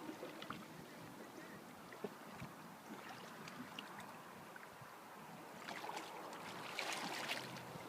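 Faint river water lapping and trickling around a raft drifting on calm water, with small splashy ticks, a louder stretch of splashing and wind on the microphone near the end.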